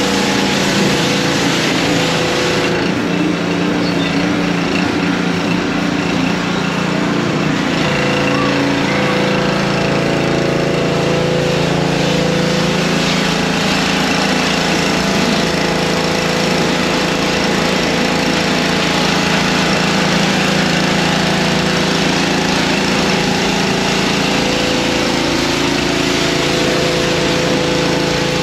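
A small engine running steadily, its pitch shifting slightly a few times.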